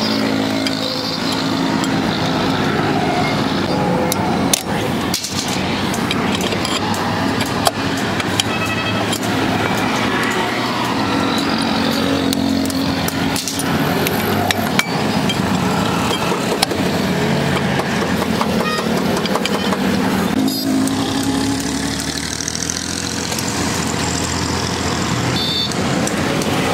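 Road traffic passing nearby, a steady run of car and motorcycle engines, with a few sharp knocks from tools and the brake drum being handled.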